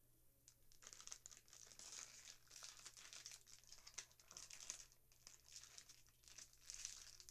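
Faint crinkling and rustling of plastic toy packaging being handled, in quick irregular crackles.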